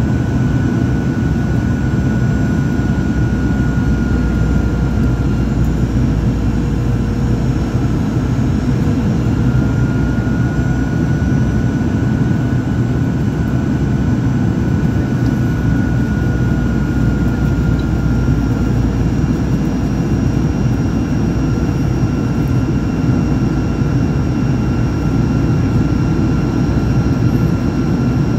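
Cabin noise of a Boeing 737-800 climbing after takeoff: its CFM56-7B turbofan engines at climb power, a steady roar strongest in the low end, with a faint whine that drifts slightly in pitch. A thin higher whine joins about two-thirds of the way through.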